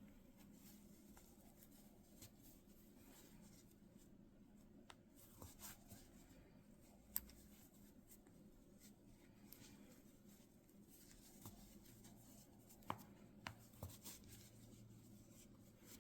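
Near silence with faint rustling and a few light ticks, as a metal crochet hook works yarn through decrease stitches.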